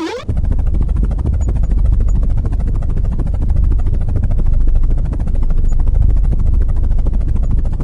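Helicopter rotor sound, a steady rapid low chopping of the blades.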